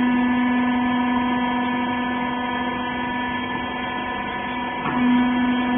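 Rags baler's electric hydraulic pump motor running with a steady hum. About five seconds in, the hum briefly dips and comes back up.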